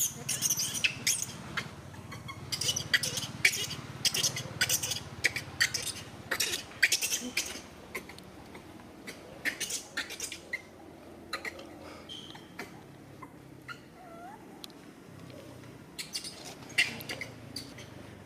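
Monkeys giving many short, high-pitched squeaks and chirps in quick runs, busiest over the first half, thinning out in the middle and picking up again near the end.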